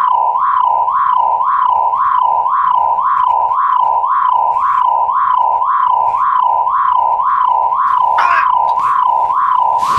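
A loud, steady electronic tone that warbles in even pulses about twice a second, like a strange signal coming from an old CRT television.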